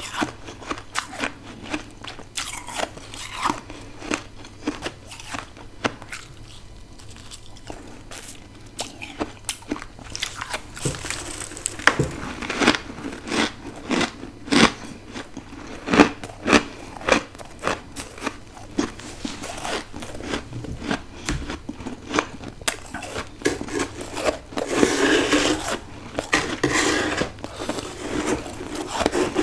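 A person biting and chewing freezer frost ice: many sharp crunches, sparse for the first ten seconds or so, then coming thick and fast.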